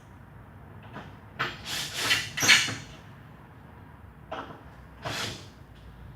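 Two spells of hard scraping and knocking, as of concrete panels being shifted and set against each other: a longer one about a second and a half in and a shorter one past the middle.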